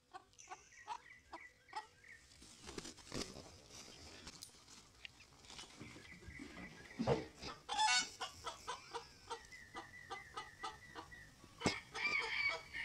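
Roosters clucking in a quick run of short calls, a few a second, with a louder squawk about eight seconds in and again near the end. A few sharp knocks are heard among the calls.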